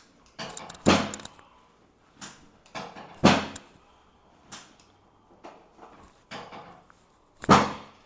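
Chiropractic hand thrusts on a patient's back: short, sharp cracks and thumps of the spine and the pressing hands, three loud ones (about a second in, past three seconds, and near the end) with fainter clicks between.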